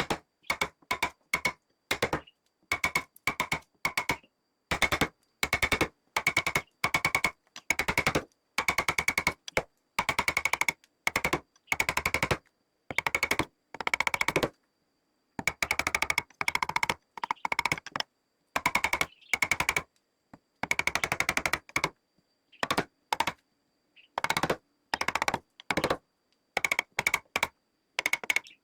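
A power carving tool working wood in short bursts of rapid tapping, each burst lasting under a second and stopping abruptly, repeated many times.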